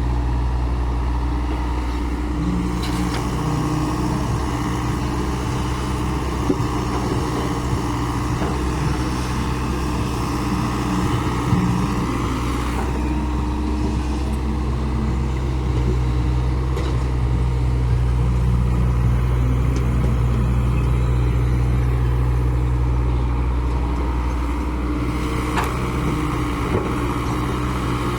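Diesel engine of heavy construction machinery running steadily, its pitch shifting up and down a few times as the load changes, with a few short clanks.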